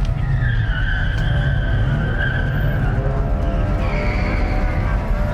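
Truck tyres squealing in a long, wavering burnout, with music playing underneath.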